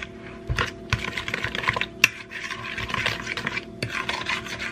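A fork stirring and scraping through thick, wet banana bread batter in a mixing bowl, with scattered clicks of the fork against the bowl.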